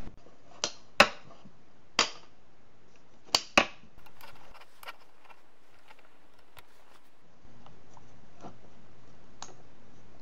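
Rubber bands snapping against notched wooden puzzle pieces as the bands are stretched and hooked into place: five sharp clicks in the first few seconds, the loudest about a second in, then a few faint ticks.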